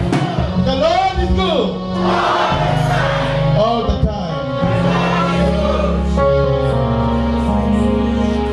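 Gospel worship song: several voices singing, with bending runs early on and long held notes later, over instrumental backing with sustained low bass notes.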